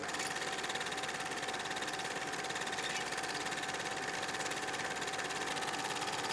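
Film projector running: a steady, rapid mechanical clatter with a constant whine.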